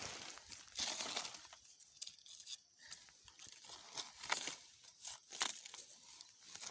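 Dry leaves and undergrowth rustling and crunching in irregular bursts, with a few sharper crackles.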